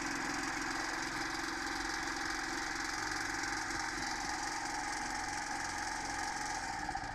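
Firman 2600/3100-watt portable petrol generator engine running steadily with the choke off, just after a warm restart on the recoil pull-starter.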